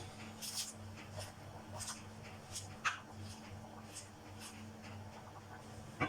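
Light, scattered scrapes and clicks of a cooking utensil working in a pot of mung bean soup as the spinach goes in, over a steady low hum.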